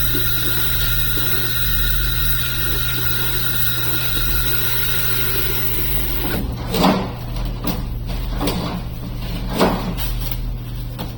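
Harsh noise music: a dense, loud wall of electronic noise over a steady low drone and several held high tones. About six seconds in the high tones drop out, and four swelling whooshes follow.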